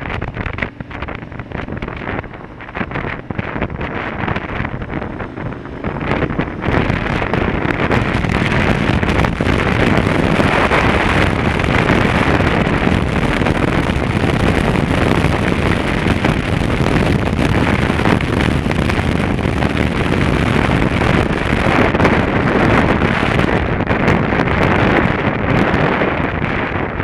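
Wind rushing over a helmet-mounted camera's microphone on a moving motorcycle, with engine and road noise under it. It grows louder about six seconds in and eases a little near the end as the bike slows.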